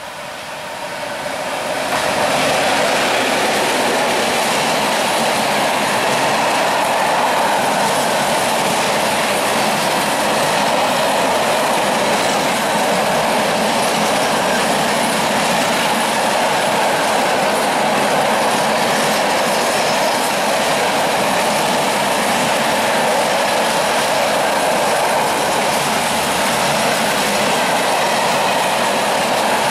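Freight train of open gondola wagons rolling past at close range, wheels running on the rails. It gets louder over the first two seconds as the train comes alongside, then holds steady.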